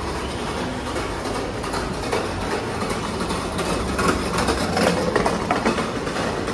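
Busy indoor shopping-mall ambience: a steady rumble and hubbub, with a spell of clattering and clicks about four to six seconds in.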